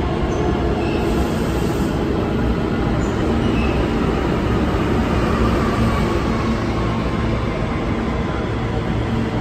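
R160B subway train with Siemens propulsion pulling into an underground station, a steady loud rumble of wheels on rails as the cars roll along the platform.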